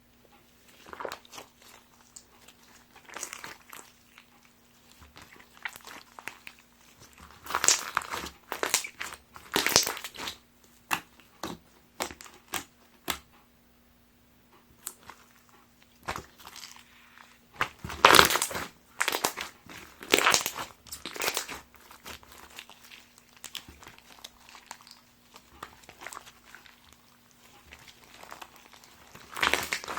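Hands squeezing and poking a crunchy slime packed with foam packing pieces, giving irregular crinkling, crackling crunches and pops, with several much louder squeezes along the way.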